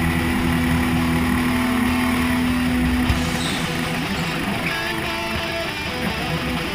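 Go-kart engine running under electric guitar background music; the low engine sound eases a little after a short knock about three seconds in.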